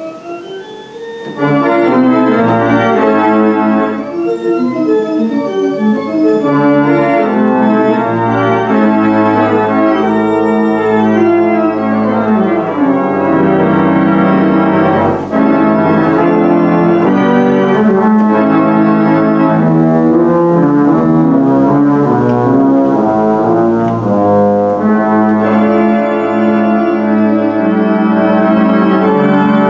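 1,972-pipe Aeolian pipe organ played from its keyboards: sustained chords with moving lines above and below. It starts softly and becomes much louder and fuller about a second and a half in, then keeps a steady full sound.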